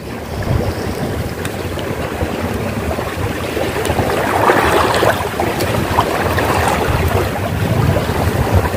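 Steady wind buffeting the microphone, over the wash of choppy sea water.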